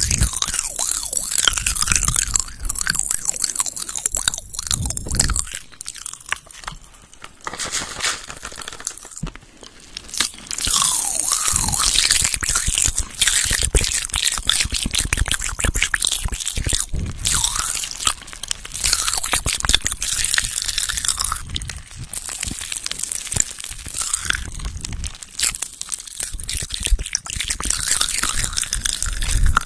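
Close-miked ASMR trigger sounds: dense, crisp crackling and crunching right at the microphone. It eases off for a few seconds about six to ten seconds in.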